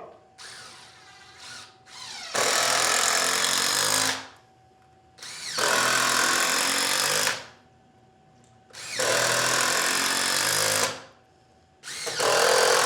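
Cordless power driver sinking screws one after another: four bursts of about two seconds each, with short pauses between them as the next screw is set, and a brief light run of the tool about half a second in.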